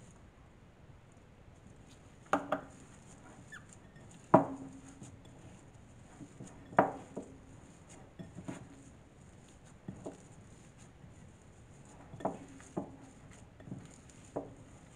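Hands kneading glutinous rice flour dough in a glass mixing bowl. The bowl knocks sharply about ten times at uneven intervals, and each knock rings briefly.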